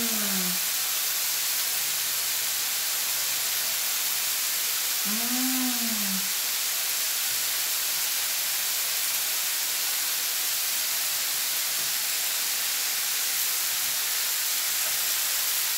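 Beef satay skewers sizzling on a hot electric grill plate: a steady, even hiss of the meat and its marinade frying.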